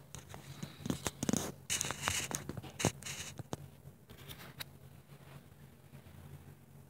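Handling noise as a camera is picked up, moved and set down: rustling, scraping and a string of small knocks, busiest in the first few seconds, over a low steady hum.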